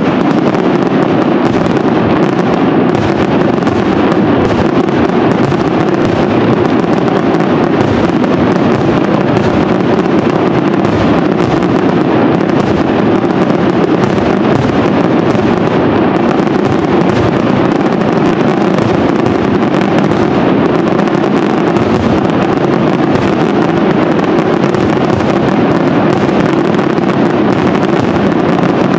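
Aerial fireworks shells bursting in rapid, unbroken succession, the bangs running together into a steady, dense rumble.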